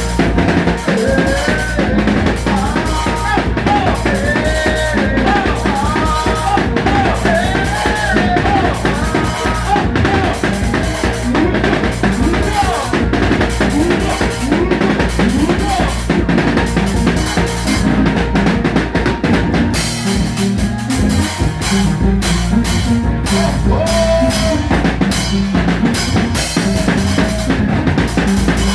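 Band music: a drum kit with bass drum and snare keeps a steady beat under a bass line, while a lead melody bends and slides in pitch over it.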